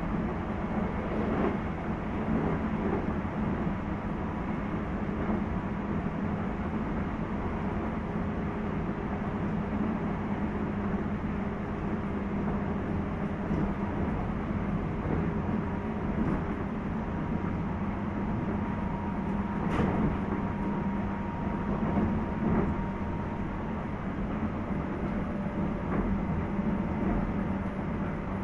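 Running sound from inside a JR 719 series electric multiple unit motor car, KuMoHa 719-1, travelling at speed: a steady rumble with faint steady tones. A few sharp clicks come through, about a second in and again around twenty seconds in. The recordist queries whether this car makes an unusual noise.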